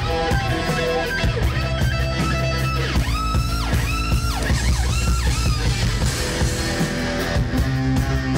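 Live rock band playing: an electric guitar lead over drums, with string bends that rise and fall in pitch about three to four seconds in.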